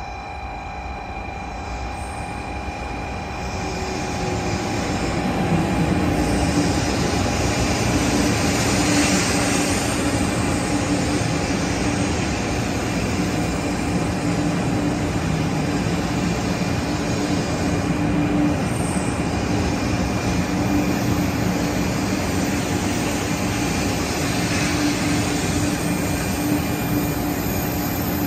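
JR West 500-series Hello Kitty Shinkansen train pulling in along a station platform. The rumble of wheels and rushing air grows louder over the first several seconds as it approaches, then holds steady as the cars roll past. A steady whine sits in the rumble from a few seconds in.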